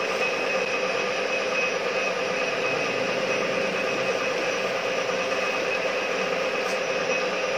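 Metal lathe running at steady speed while a cutting tool turns down a spinning brass part, chips coming off. A steady motor hum with a higher whine over it.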